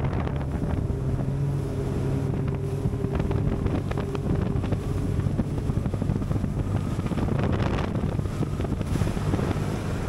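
Bass boat's outboard motor running at speed, with wind buffeting the microphone and the hull knocking on wind-blown chop.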